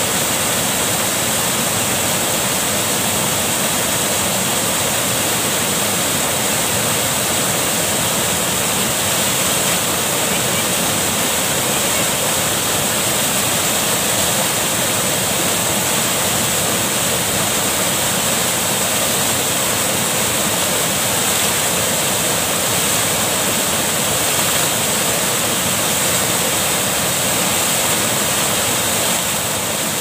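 Small river waterfall pouring over a rock ledge into a pool: a steady, unbroken rush of falling water.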